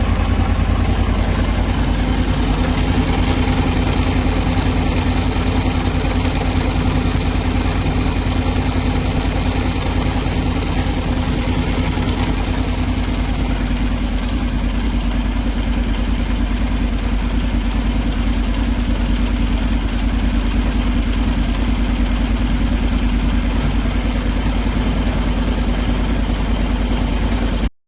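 Honda NC750X parallel-twin engine running steadily with a rapid even pulsing, carrying the noise from the front sprocket area that is being shown.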